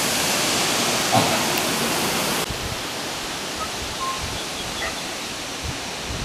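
A steady, even hiss of outdoor noise that turns suddenly duller about two and a half seconds in, with a few faint short chirps in the second half.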